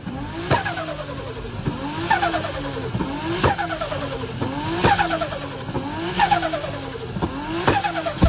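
Turbocharged car engine revved in repeated short blips, about six, one every second and a half or so. On each lift-off the turbo makes its fluttering 'stututu' chatter, with a falling whistle as the boost bleeds off.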